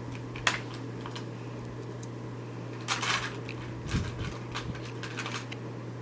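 Plastic LEGO bricks clicking and rattling as they are handled: a sharp click about half a second in, a cluster of rattling clicks around three seconds, a soft thump near four seconds, then a few light clicks, over a steady low hum.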